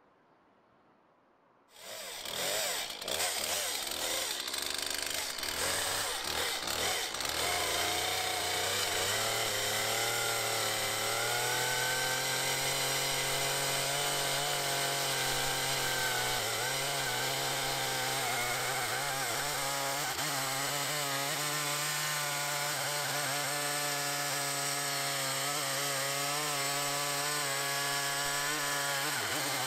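A Stihl MS 170, a small 30 cc two-stroke chainsaw, running at full throttle in an Alaskan chainsaw mill, ripping lengthwise through a log. It starts suddenly about two seconds in, wavers for the first few seconds, then settles into a steady engine note under load.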